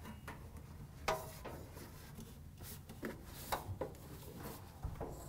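A dryer's ribbed drive belt and spring-loaded idler pulley being handled with work gloves as the belt is worked off the pulleys: rubbing with a few light clicks and knocks, the sharpest about a second in.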